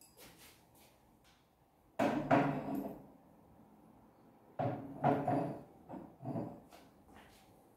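Glassware and kitchen items knocking and clattering as they are handled and put away on a kitchen shelf. One short clatter comes about two seconds in, and a longer run of knocks follows from about four and a half to six and a half seconds.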